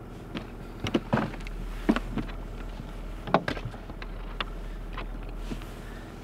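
A boat motor running steadily at trolling speed, with a series of sharp knocks and clatters as gear is moved about in the aluminium-sided boat.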